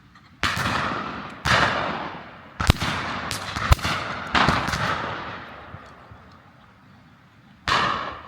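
Shotgun shots from a driven pheasant shoot: about eight shots fired irregularly by several guns over the first five seconds, each dying away slowly, then one more shot near the end.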